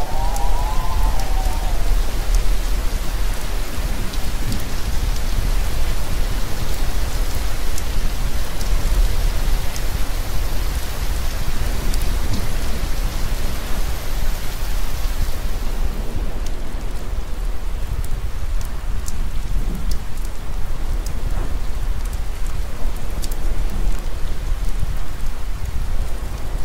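Steady heavy rain falling, with a continuous low rumble beneath it. A high wavering tone fades out in the first couple of seconds.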